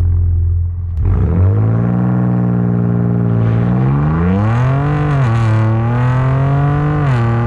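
2023 Ford Ranger Raptor's 3.0-litre twin-turbo six heard at the tailpipe under acceleration. The engine note climbs with the revs, then drops sharply at two upshifts, about five seconds in and about seven seconds in, and climbs again after each.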